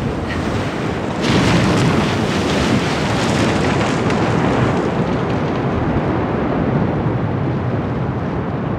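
Snow avalanche pouring down a cliff face: a continuous rushing rumble that swells about a second in and runs on, easing slightly near the end.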